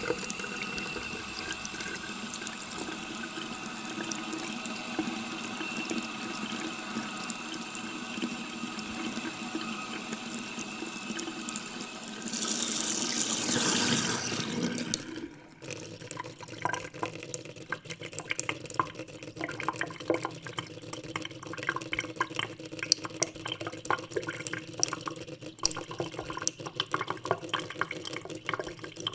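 Water from an open tap running into a stainless steel sink. It is steady at first, then swells louder and brighter for a few seconds. About halfway through it drops away and turns into an irregular spatter of splashes and drips against the steel.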